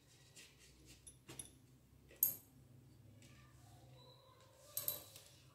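Faint clicks and taps as a steel tumbler is pressed down through bread slices on a plastic plate to cut out rounds, with one sharper click a little past two seconds in.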